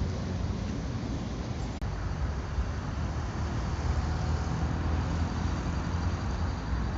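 Steady city traffic in the rain: a low rumble of passing vehicles with a hiss over it, broken by a brief dropout about two seconds in.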